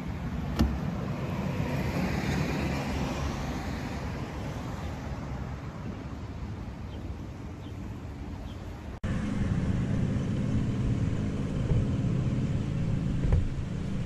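Outdoor road traffic noise mixed with wind rumble on the microphone. The noise swells over the first few seconds, breaks off abruptly about nine seconds in, and is followed by a steadier low rumble.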